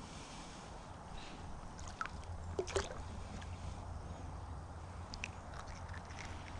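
Shallow creek water sloshing and gurgling with a low steady rumble. A few faint clicks, and one brief sharp click a little under halfway through.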